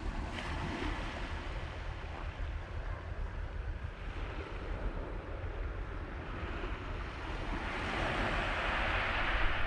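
Sea waves washing onto the beach, a steady surf hiss that swells louder near the end as a wave comes in, over a low rumble of wind buffeting the microphone.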